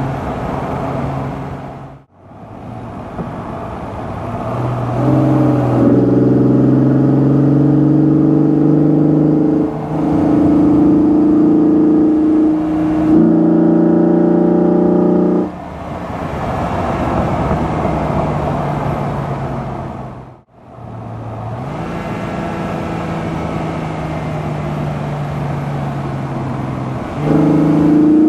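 Opel Omega's 3.2-litre 24-valve V6 and Jetex rear exhaust box under way: the engine note climbs as the car accelerates, holds loud and steady, then falls back when the throttle eases and rises again near the end. The sound drops out briefly twice.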